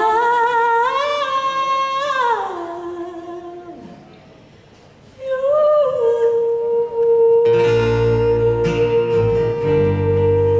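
Women singing long held notes without accompaniment: the first slides down and fades away about four seconds in, and a second long steady note starts about five seconds in. About seven and a half seconds in, acoustic guitar strumming comes in under the held note.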